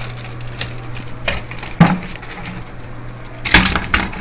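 Metal hand tools knocking and clattering against each other and the tile floor as they are picked up and handled: a few separate knocks, a loud one about two seconds in and a loud cluster near the end, over a steady low hum.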